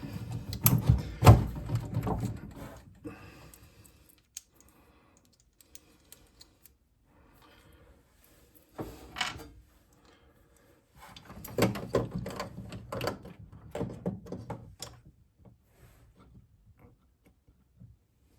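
Clicks, knocks and rattles of parts and tools being handled and fitted together during hand assembly, in irregular bursts: a busy spell at the start, a short one about halfway, and another near the end.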